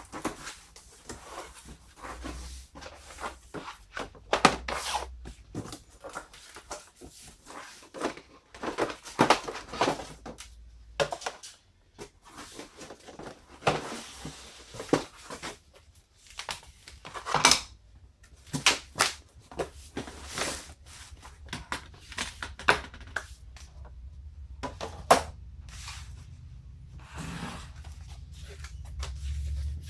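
Packaging being handled: rustling and tearing with irregular knocks, clicks and thunks as parts are lifted out and set down.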